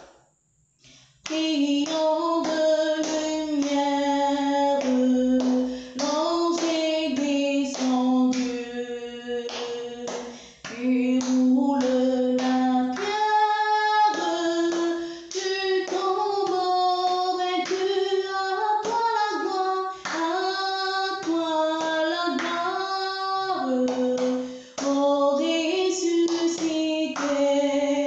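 Women's voices singing a French-language Easter hymn of Christ's resurrection, with hand claps keeping a steady beat. The singing starts again about a second in after a short pause.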